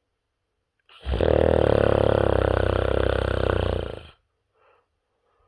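A person snoring: one loud snore about three seconds long with a fast flutter, starting about a second in, with faint breaths around it.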